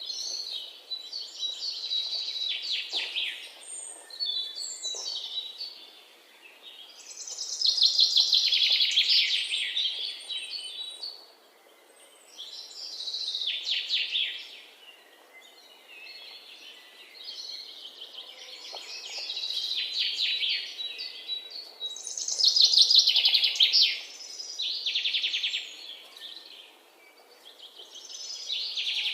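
Songbird singing: long phrases of rapid high trills, a new phrase every few seconds with short pauses between, over faint outdoor background noise.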